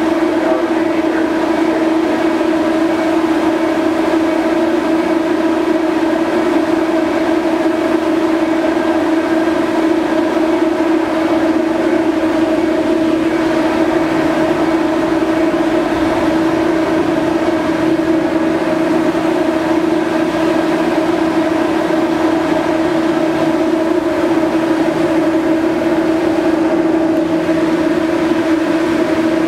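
BC Ferries MV Salish Eagle's onboard machinery running: a loud, steady drone with a strong even hum tone, joined by a lower hum about halfway through.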